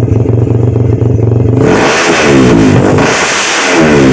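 Tuned Yamaha Vixion 150cc single-cylinder four-stroke engine breathing through a cheap Bintang aftermarket exhaust. It idles loudly and steadily, then from about one and a half seconds in it is revved in throttle blips, its pitch rising and falling.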